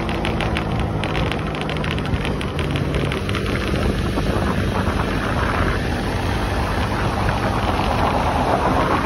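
Wind rushing over the microphone of a moving motorcycle, with the bike's engine hum underneath; the engine hum fades after about three seconds and the wind noise grows toward the end.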